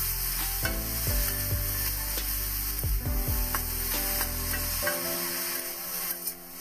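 Chopped leafy greens sizzling in hot oil in an aluminium kadai while a spatula stirs and tosses them, with scrapes and knocks against the pan. Background music with held notes plays underneath.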